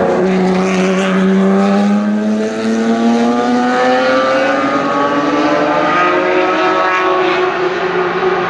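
Historic racing car engine accelerating hard, its note climbing slowly and steadily.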